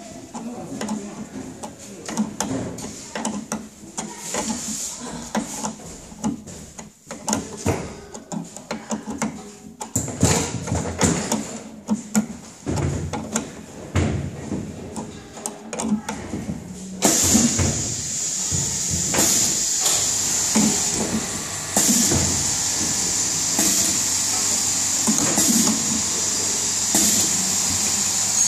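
Hand assembly on a stainless-steel filling machine: light metallic clicks and knocks as a T-handle hex key turns a bolt at the piston rod and metal parts are handled. About 17 seconds in, a steady high hiss starts and continues under further knocks.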